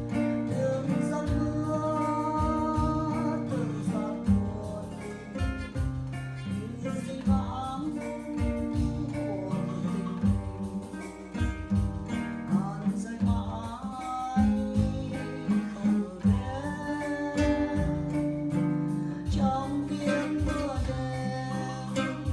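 Song accompaniment led by acoustic guitar, plucked and strummed, with a held melody line over it.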